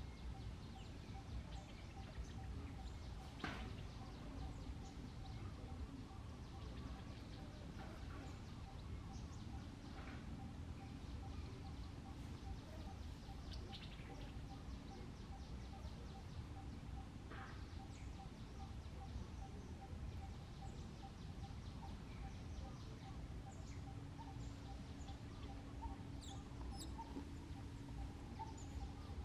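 Faint outdoor ambience: a steady low rumble with a quiet repeating pulsed call running throughout and a few short chirps scattered across it.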